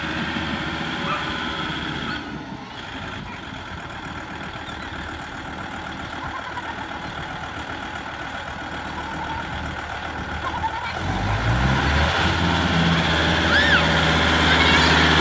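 Kubota M4030SU tractor's diesel engine running steadily as the tractor drives up, getting louder as it nears; about eleven seconds in, the engine note rises.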